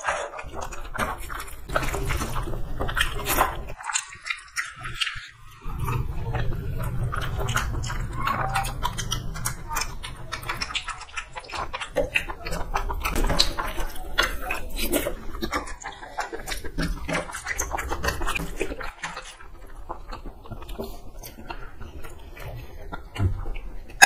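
Eating noises of two people eating rice, boiled eggs and chicken curry with their hands: wet chewing and lip-smacking, with fingers mixing rice on steel plates, as a dense run of irregular clicks and smacks.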